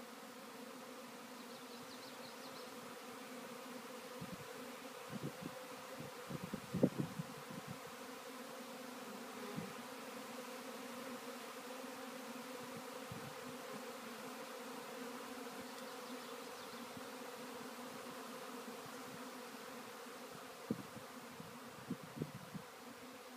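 Steady hum of many flying insects swarming in the air together, a continuous buzzing drone with no break. A few soft low bumps come through, the loudest about seven seconds in and a cluster near the end.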